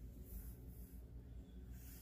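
Faint, steady low rumble with brief faint hisses: quiet background noise.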